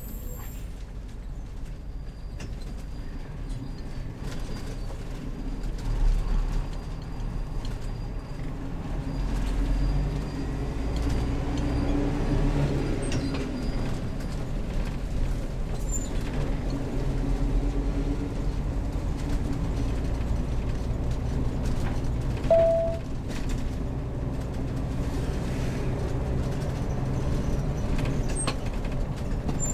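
Heavy motorhome driving: a steady low engine and road rumble that swells a little now and then, with one short beep about two-thirds of the way through.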